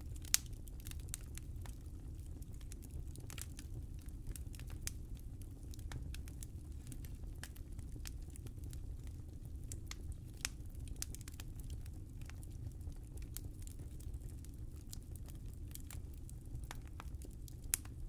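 Fire burning in a fireplace: irregular crackles and pops over a low, steady rumble, with a sharper pop just after the start and another near the end.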